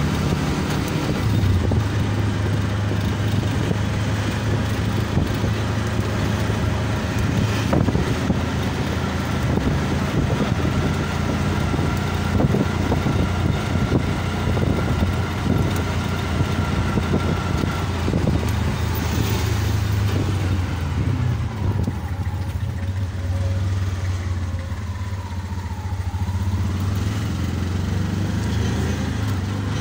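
Small auto-rickshaw (tuk-tuk) engine running steadily as it drives, heard from inside the open passenger cab along with road and wind noise; the engine eases off for a few seconds in the last third before picking up again.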